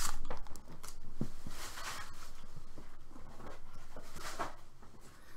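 Quiet, intermittent rustling and a few light taps, with short swishes spread through the stretch: items being handled on a tabletop, such as torn-open foil card wrappers.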